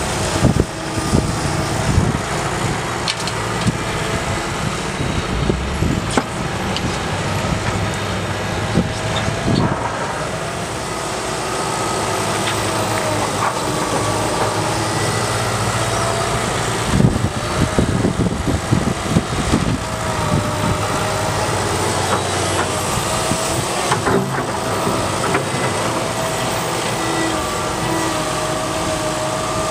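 Liebherr R 926 crawler excavator's diesel engine and hydraulics running steadily under load, with a whine that rises and falls as the boom and bucket move. Knocks and rattles of earth and gravel falling come near the start and again about two-thirds of the way through, as bucketloads of recycling material are dumped.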